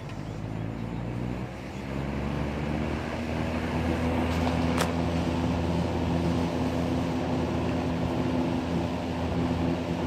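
Western Auto Citation wide-blade box fan (made by Lasko, circa 1978) running on high: a steady motor hum and blade noise that grows louder over the first few seconds as the motor comes up to speed, then holds steady. A single click about five seconds in.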